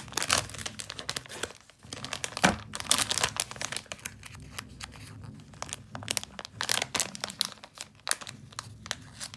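Plastic packaging crinkling and tearing as hands work open a bubble-wrap bag and a clear plastic sleeve, with irregular crackles throughout. A louder thump comes about two and a half seconds in.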